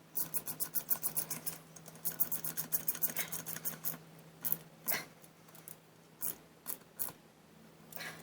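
Ratchet spanner clicking in two quick runs of about nine clicks a second as a bolt is run in, then a few single clicks.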